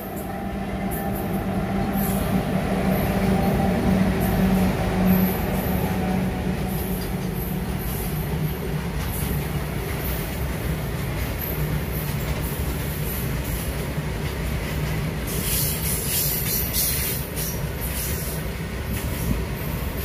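Goods train hauled by twin WAG-7 electric locomotives passing close by, followed by a long rake of loaded open wagons rolling past with a continuous rumble and clatter of wheels. A steady hum is heard in the first few seconds as the locomotives go by. A stretch of higher-pitched squealing and rattling comes about fifteen seconds in.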